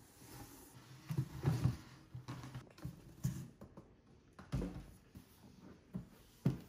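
Cardboard boxes being handled: a rigid gift box is slid and lifted out of a corrugated shipping carton with scrapes and knocks, then set down on a table with a thump near the end.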